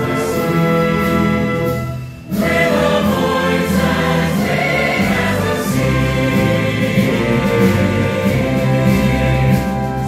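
Large choir singing with a full orchestra. The music drops away briefly about two seconds in, then comes back in full.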